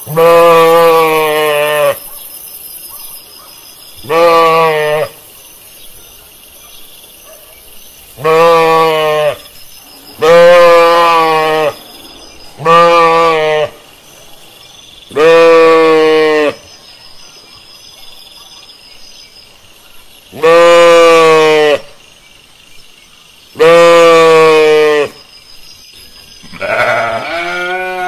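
Sheep bleating: about nine long, quavering bleats, each one to two seconds, a few seconds apart.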